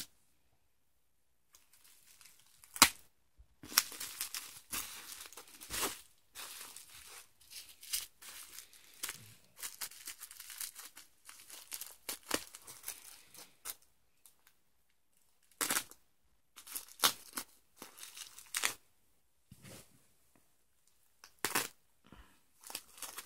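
Clear packing tape on a white cardboard mailer being slit with a utility knife and pulled loose: irregular bursts of tearing and crinkling, with one sharp snap about three seconds in.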